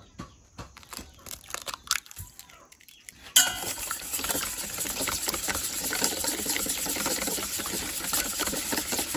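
Wire whisk beating an egg with salt and seasoning powder in a stainless steel bowl: a fast, continuous clatter of the wires against the metal, starting about three seconds in after a few light clicks.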